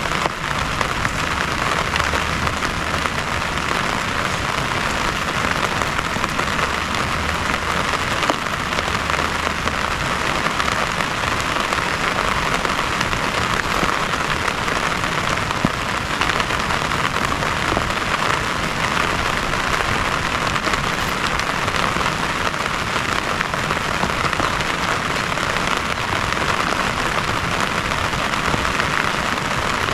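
Heavy rain falling steadily on a surface, a continuous even hiss without a break.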